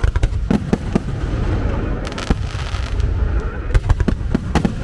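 Starmine fireworks barrage: a rapid string of overlapping shell bursts, with sharp bangs over a continuous deep rumble and crackle.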